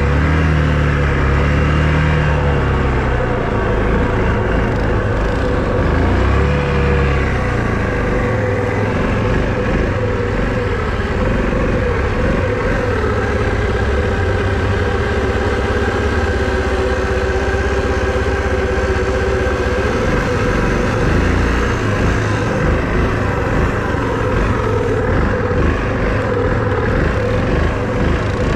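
Small all-terrain vehicle engine running under way. It revs up and eases off in the first few seconds, then holds a fairly steady speed with small changes in throttle.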